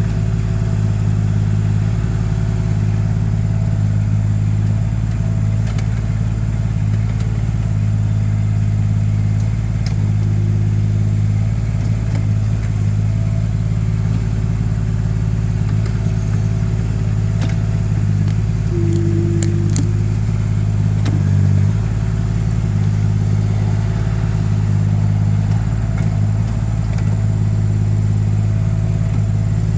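Mini excavator engine running steadily under the digging work. About two-thirds of the way in there are a brief higher whine, a few sharp clicks and a short dip in the engine note.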